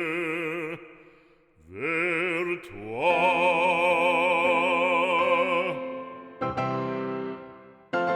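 Operatic solo singing with a wide vibrato: the voice slides up into a long held note, then falls silent. Two struck piano chords ring out near the end.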